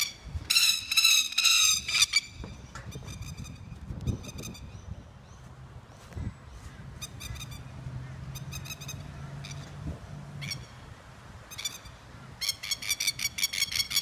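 Masked lapwing, the Australian 'plover', giving its rapid rattling alarm call in repeated bursts. The bursts are loudest about a second in and come thick again near the end: the call of a plover on the attack against a person.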